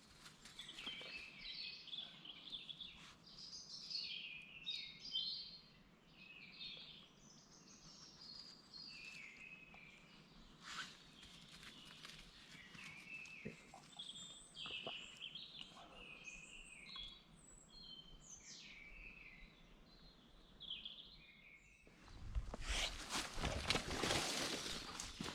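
Woodland birds singing, a run of short, quick chirps and twitters. Near the end a loud rustling starts.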